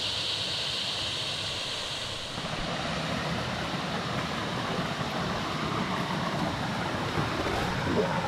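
Creek water running over rocks, a steady rushing noise. A high, steady insect drone fades out about two seconds in.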